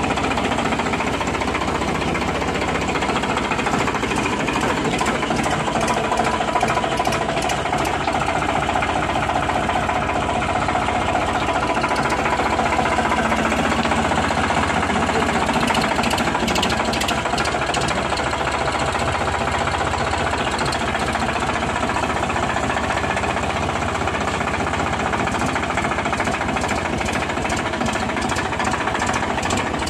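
Indo Farm 3048DI tractor's direct-injection diesel engine running steadily.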